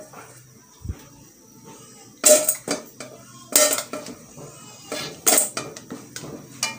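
Wooden spatula stirring in a metal wok of crab and shrimp in coconut milk, scraping and knocking against the pan. Three loud clacks come about a second or so apart from about two seconds in, with lighter taps between.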